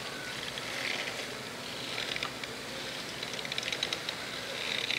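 Kastking Valiant Eagle spinning reel being cranked to retrieve a micro jig, giving short spells of fast ticking about two seconds in, past three seconds and near the end, over a steady harbour hiss.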